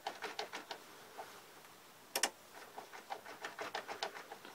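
Rapid, irregular plastic clicking and rattling as an Airfix OO-gauge Great Western Prairie tank model locomotive is nudged along the track by hand after stalling, with one louder click about two seconds in.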